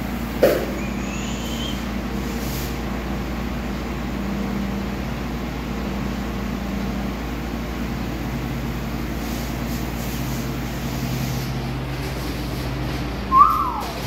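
Steady mechanical hum and hiss, with a short rising whistle about half a second in and a brief falling whistle near the end.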